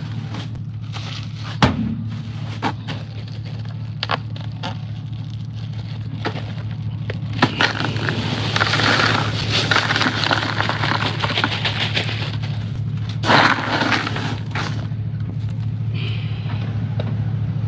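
A plastic bag rustling and crinkling as it is handled over a pickup truck's tailgate, mostly in the middle of the stretch and again briefly a few seconds later. Scattered knocks and thumps run through it, over a steady low hum.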